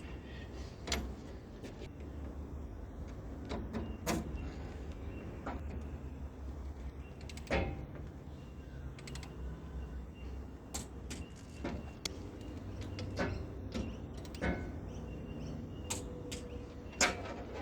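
Scattered metallic clicks and knocks of hand tools working on heavy cable lugs and terminals, over a low steady hum.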